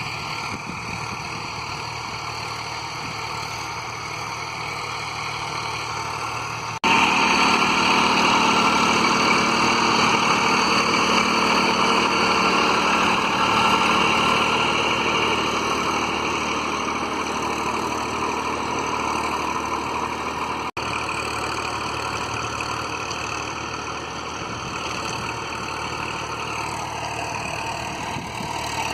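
Tractor's diesel engine running steadily while pulling a rotavator. The sound jumps louder about seven seconds in and drops back about twenty-one seconds in.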